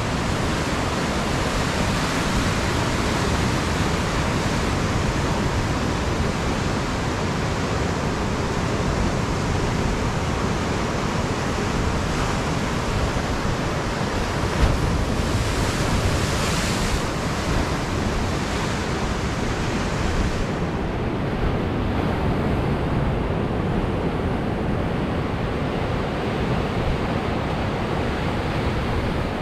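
Ocean surf breaking and washing over jetty rocks: a steady rush of white water with no pause, and a brief louder surge about halfway through.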